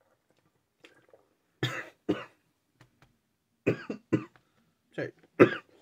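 A man coughing into his elbow: six short coughs in three pairs, starting about a second and a half in.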